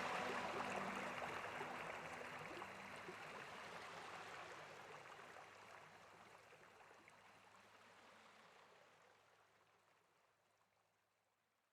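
Running water like a stream, with the last tones of background music at the start, fading out gradually to silence.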